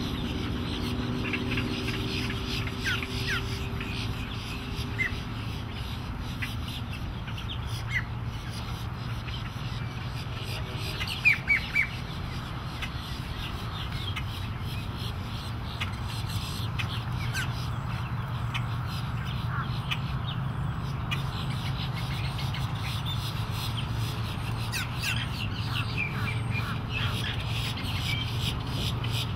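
Birds squawking and calling on and off, with three loud squawks in quick succession about eleven seconds in. Underneath runs the low, steady drone of a distant outboard motor, which grows louder in the second half.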